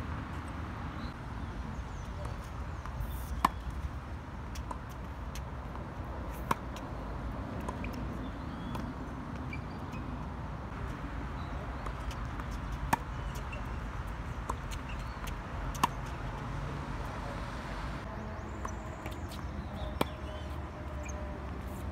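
Tennis ball hit with a racket during a baseline rally on a hard court: five sharp pops a few seconds apart, with a longer gap in the middle, and fainter ticks of ball bounces and distant hits between them, over steady low background noise.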